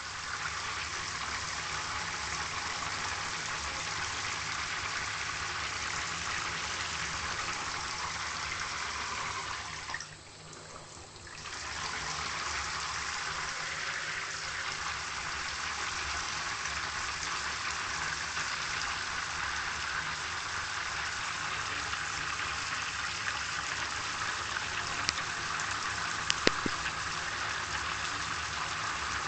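Steady rushing noise of running water, dropping away briefly about ten seconds in and then resuming, with a few faint clicks near the end.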